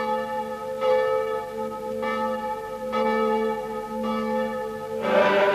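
A single church bell tolling, about one stroke a second, each stroke ringing on into the next. Near the end a choir starts singing over it.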